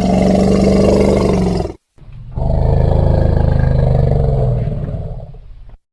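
Two long, loud, low-pitched calls from a large animal: the first lasts about two seconds, the second about four seconds and fades near its end.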